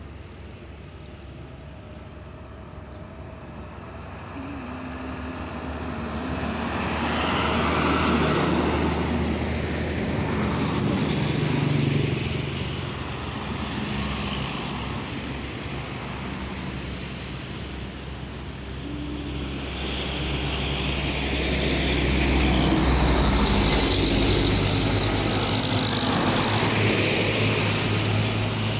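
Road traffic passing close by: diesel trucks and cars drive past one after another, each one's engine and tyre noise swelling and fading, loudest over the last third as a diesel truck draws near.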